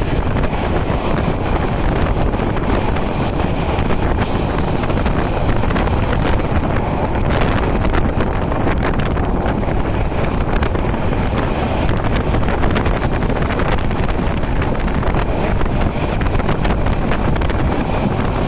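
Strong wind buffeting the microphone at the open door of a moving passenger train, over the steady running noise of the train on the rails.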